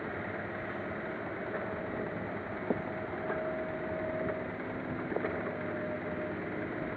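Diesel engine of a tracked hydraulic excavator running steadily while it swings its boom and bucket, with the dump truck's engine idling alongside. A sharp knock comes a little under three seconds in, and a few smaller ones around five seconds.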